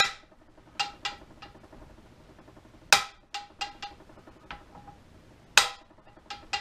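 Hammer tapping on the U-joint yoke of a 2007 Ford F-150 driveshaft: about a dozen sharp metallic taps in irregular groups, each with a short ring, three of them noticeably harder. The taps are to free a newly installed U-joint that is still stiff in its bearing caps so it swivels freely.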